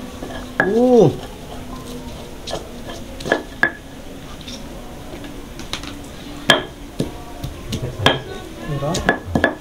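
Stone pestle crushing and grinding chillies and shallots in a stone mortar (ulekan and cobek) while making sambal, with irregular sharp knocks of stone on stone. About a second in, a short voice call rises and falls over it.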